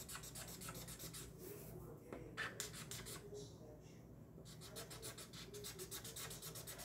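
Felt-tip marker scribbling on paper: quick back-and-forth colouring strokes, several a second. They stop for about three seconds a second in, with a couple of small clicks, then start again.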